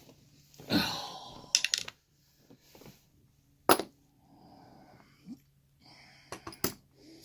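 Small metal lock-cylinder parts clicking as the picked cylinder is taken apart by hand: a short rushing noise about a second in, a few quick sharp clicks just after, a single sharp click near four seconds, and another quick cluster of clicks near the end.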